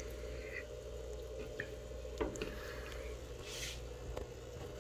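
Quiet steady low hum of aquarium equipment, with a few faint clicks and a brief soft hiss about three and a half seconds in.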